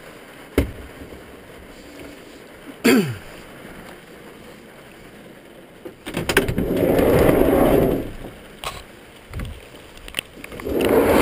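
Handling and movement noise from someone climbing about with a head-mounted camera: a sharp knock, a short falling squeak about three seconds in, then two spells of rushing rumble, the longer one lasting about two seconds from about six seconds in.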